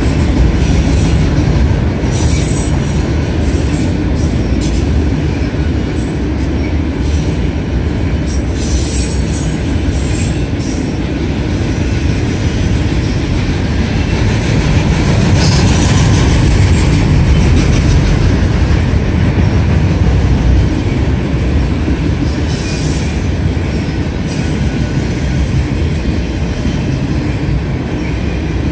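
Autorack freight cars rolling past close by: a steady rumble and clatter of steel wheels on rail, with irregular sharper clanks and screeches.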